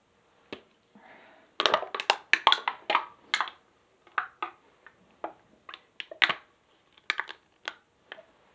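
Drink can being crushed and squeezed by hand: a run of sharp crackles and clicks starting about a second and a half in, dense for a couple of seconds, then sparser.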